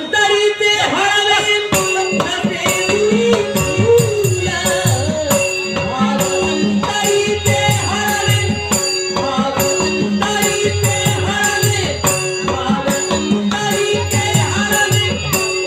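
A song with a wavering sung melody over a steady beat of drum strokes and jingling, rattling percussion.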